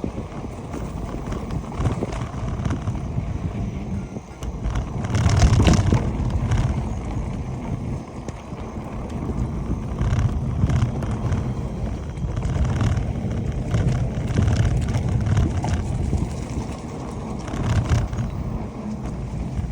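Wind buffeting the microphone over the rumble and clatter of a mountain bike ridden along a rough trail, with scattered knocks and rattles and a louder gust about five seconds in.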